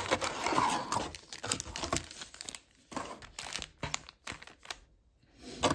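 Plastic card packaging crinkling as it is handled, followed by a few light clicks and taps.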